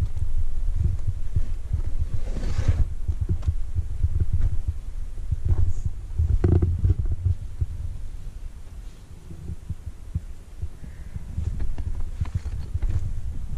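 Wind buffeting the microphone as a low, uneven rumble that eases for a few seconds past the middle, with a couple of brief knocks about two and a half and six and a half seconds in.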